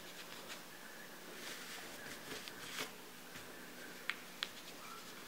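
Faint rustling of gathered fabric being handled and pinned by hand, with two small sharp clicks near the end.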